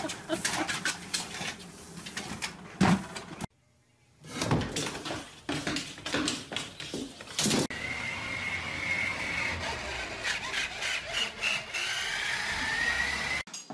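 A treadmill running, with a puppy's paws patting on the belt. After a brief break come knocks and thumps. Then a toy dump truck's electric motor whines steadily, its pitch rising near the end.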